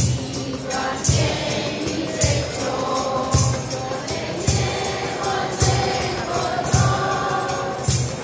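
Mixed youth choir singing a Christmas carol in unison, over a steady percussion beat struck about once a second.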